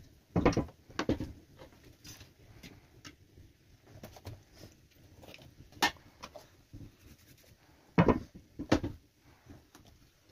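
Hand-work at a wooden board: a few dull knocks and thumps, two loud ones about half a second and a second in, a sharp click near the middle and two more thumps near the end, with light clicks and rustles between them.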